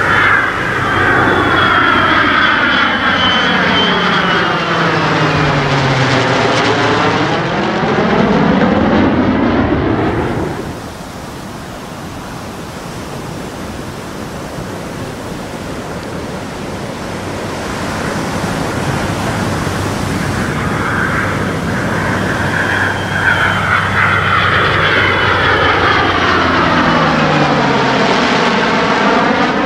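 Fighter jet flying past twice. Loud jet noise with a sweeping, phasing sound and a falling low tone drops away sharply about ten seconds in, stays quieter for several seconds, then builds again as the jet comes round for another pass.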